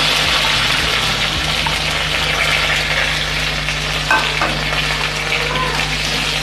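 Sliced onions sizzling steadily as they fry in hot oil with mustard seeds and curry leaves in a nonstick pan, with a couple of light clicks about four seconds in; near the end a spatula starts stirring them.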